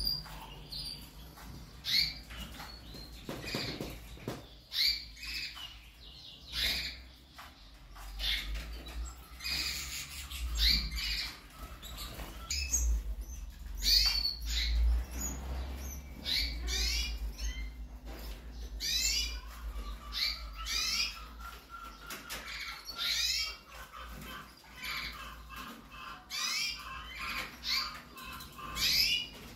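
Caged canaries chirping, with many short high chirps that sweep downward. About two-thirds of the way through, a fast run of evenly spaced lower notes joins the chirping.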